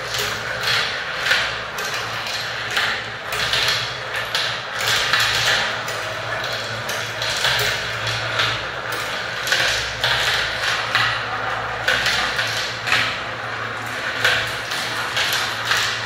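Marbles and small plastic balls rolling around the plastic funnel bowls of a marble run and dropping through its plastic tubes: a steady rolling rattle thick with small clicks as the balls hit the plastic and each other.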